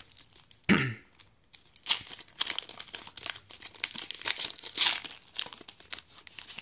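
Foil Yu-Gi-Oh booster pack being torn open by hand, the wrapper crinkling and crackling in quick irregular bursts. A single short louder sound comes just under a second in.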